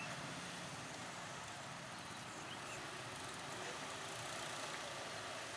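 Faint, steady hum of a KAI inspection railcar's engine as it moves slowly toward the camera.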